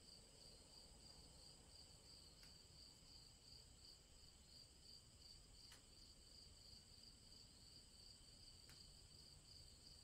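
Faint crickets chirping in a steady, evenly pulsing trill.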